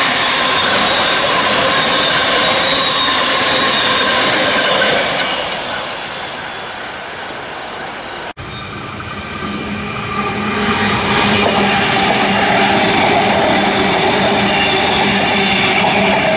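A stainless-steel Sydney double-deck electric train running past on the rails and fading away. After a sudden cut, a second double-deck electric train, a Waratah (A set), approaches and passes close, loud from about ten seconds in, with a steady motor hum over the wheel noise.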